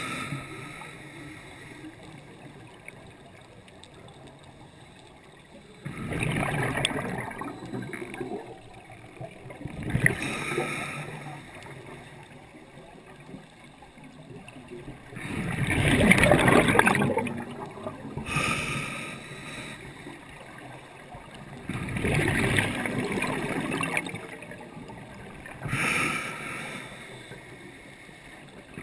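Scuba diver's breathing through a regulator, heard through a GoPro dive housing: rushing bursts of exhaled bubbles, five of them, each lasting a second or two and coming every four to six seconds, the loudest about halfway through, with a low muffled hiss between.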